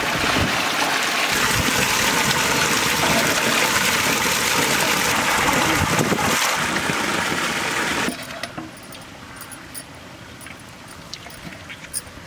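Water gushing steadily from a pump outlet pipe into a concrete irrigation tank, with splashing as a chicken is rinsed by hand in a steel bowl. About eight seconds in the rush cuts off abruptly, leaving a much quieter background with a few faint clicks.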